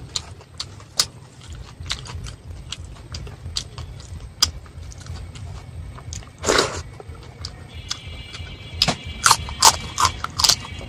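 Close-up eating sounds: chewing with many small wet mouth clicks and crunches. There is a louder crunchy bite about six and a half seconds in, and a run of loud bites near the end.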